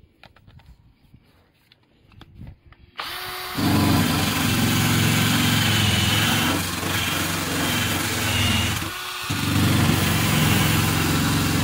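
Faint handling clicks, then about three seconds in a power drill with a wire wheel brush attachment starts up and runs against a car's underbody, scrubbing off rust. It stops briefly near nine seconds and starts again.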